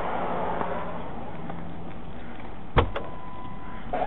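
Steady running noise of a vehicle, with a single sharp knock about three seconds in, followed by a lighter click.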